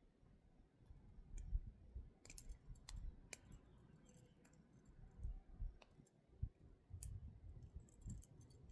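Bobby pin picking the lock of a Smith & Wesson handcuff: scattered light metallic clicks and scrapes with soft handling bumps. The cuff has not yet opened.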